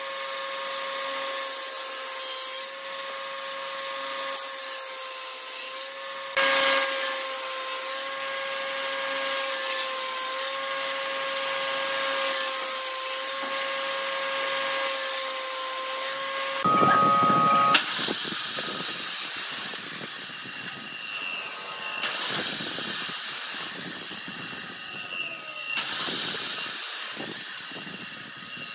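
A table saw runs with a steady whine while a wooden block is fed across the blade again and again, a hissing cut about every second and a half. About 17 s in the sound changes to a chop/miter saw starting with a loud burst and cutting through wooden blocks, its motor winding down between cuts.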